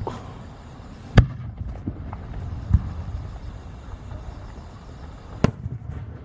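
Aerial firework shells bursting: three sharp bangs, about a second in, near the middle and near the end, the first the loudest, over a low steady rumble.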